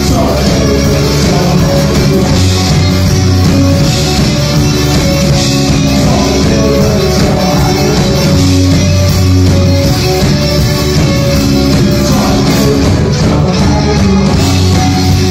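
A rock band playing live at full volume, with electric guitars and keyboards over sustained bass notes that change every few seconds.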